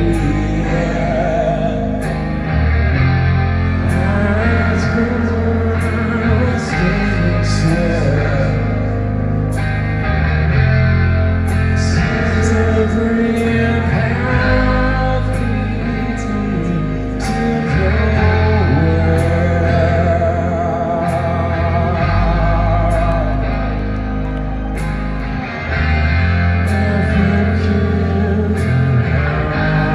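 Live rock band performing a slow, heavy song through a concert PA: a sung lead vocal over electric guitars, sustained low bass notes and drums with regular cymbal strikes.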